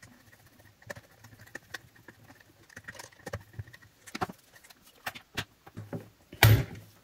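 Scattered light clicks and taps of hands handling small plastic and metal parts, pressing a retaining ring onto the back of a jet ski display and moving its wiring harness, with one louder knock about six and a half seconds in.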